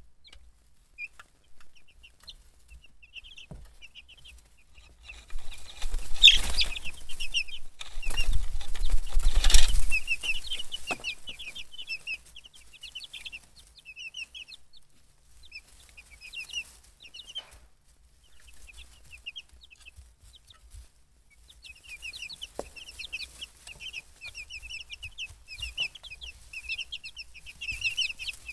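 Young chicks peeping, many quick high cheeps throughout, with a loud flurry of wing flapping and scuffling from about five to ten seconds in.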